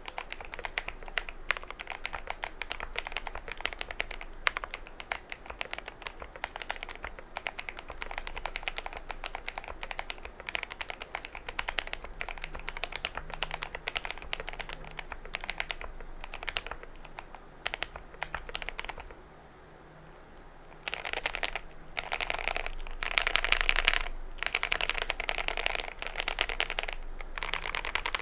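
Typing on a GMMK Pro mechanical keyboard fitted with stock KTT Wine Red v3 linear switches. The keystrokes come as a fast, continuous clatter, ease off briefly about two-thirds of the way through, then return in louder bursts.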